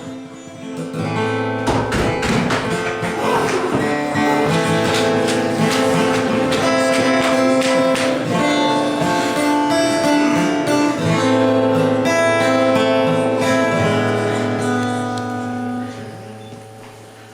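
Background music led by plucked acoustic guitar, building up in the first couple of seconds and fading out near the end.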